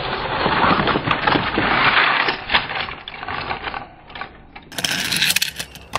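Die-cast Take-n-Play toy trains rolling down a plastic playset's track, a dense rattling clatter of many small clicks that eases off about halfway through.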